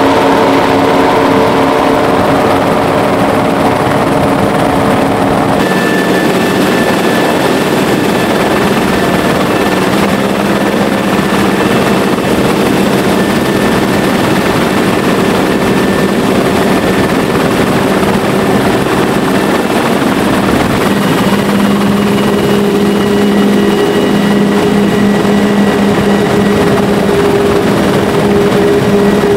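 Loud, steady engine noise from the chasing helicopter and the speedboats running at speed, holding several even tones. The pitch pattern changes abruptly about five and a half seconds in, and the lower tone grows stronger a little after twenty seconds.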